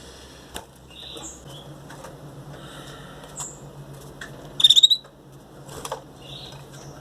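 Belgian canary chicks, about 17 days old, giving short high squeaky begging cheeps while being hand-fed, with a loud quick run of cheeps about halfway through and a few sharp clicks.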